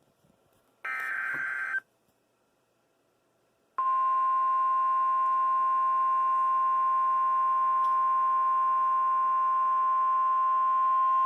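NOAA Weather Radio alert heard through a radio receiver. About a second in comes a brief burst of SAME digital header data, and after a short pause the steady 1050 Hz Warning Alarm Tone starts about four seconds in and holds without change, announcing a National Weather Service warning broadcast.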